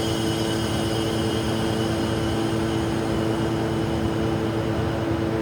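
A machine running steadily: a constant mechanical drone with a few held tones, unchanged throughout.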